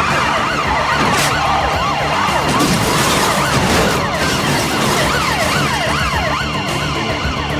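Several police sirens sounding at once, each rising and falling rapidly in pitch and overlapping, over vehicle noise, with a short sharp noise about a second in.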